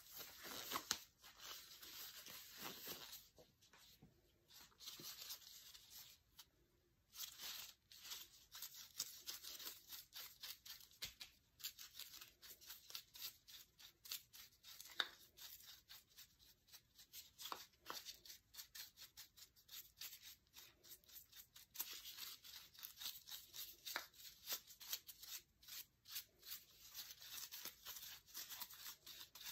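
Faint rustling and scratching in quick, irregular strokes, from hands in plastic gloves handling dry paper and fluffy craft material on a paper-covered table, with a couple of short lulls a few seconds in.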